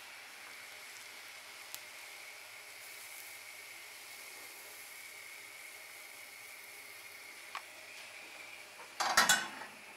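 Thick pancake batter sizzling softly in a hot buttered stainless-steel frying pan, a steady low hiss. About nine seconds in, a short, loud clatter of metal cookware.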